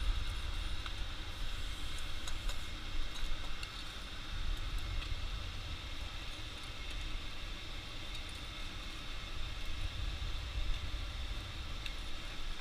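A forge running with its air blast: a steady low rumble with a hiss above it. A few faint clicks come through now and then.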